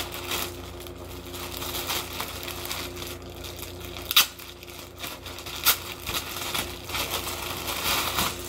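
Clear plastic poly bag crinkling and rustling as it is handled and pulled open, with sharper crackles about four seconds and five and a half seconds in.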